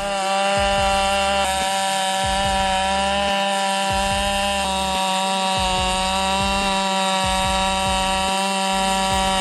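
Dolmar PS7910 79 cc two-stroke chainsaw running at full throttle, holding one steady high pitch.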